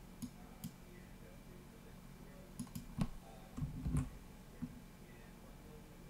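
Computer mouse clicking a handful of times, single sharp clicks scattered irregularly, the loudest about three seconds in, with a few dull low knocks just before four seconds in.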